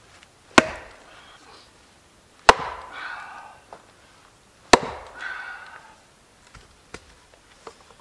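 Wooden baton striking the back of a hatchet wedged in wood on a chopping stump, batoning it to split the wood: three sharp knocks about two seconds apart, each with a short ringing, creaking tail. A few faint light knocks follow near the end.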